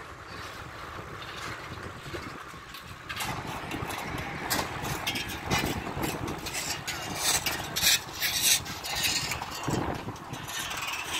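Wind and road noise from riding a road bicycle in traffic: a steady rushing that grows louder and gustier about three seconds in, with crackling buffets on the microphone.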